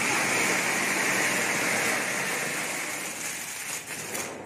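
Anar (flower pot) firework fountain hissing steadily as it sprays sparks, weakening over the last second or so and dying out near the end.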